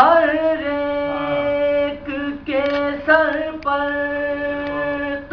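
A lone, unaccompanied male voice reciting a Salam, an Urdu elegiac poem of Muharram, in a sung chant with long held notes. The phrases break off briefly for breath a few times.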